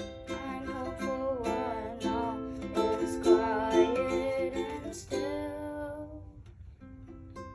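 Instrumental music: plucked strings playing short notes under a sustained, wavering melody line that fades out about six seconds in, before the plucked notes start again near the end.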